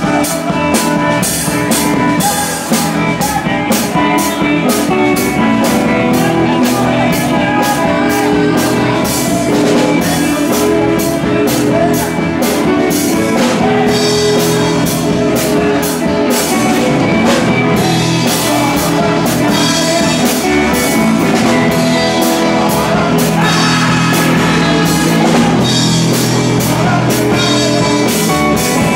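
Live rock band playing: electric guitar over a steady drum-kit beat with cymbals, loud and continuous.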